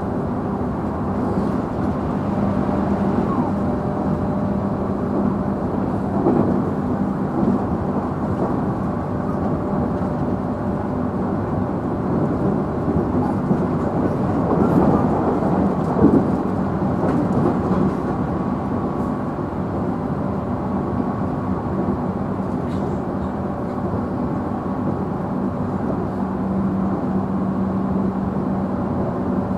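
Inside a JR Central 311 series EMU motor car (KuMoHa 311-4) running at a steady speed: a continuous rumble of wheels on rail, with a steady traction motor hum and a few faint clicks.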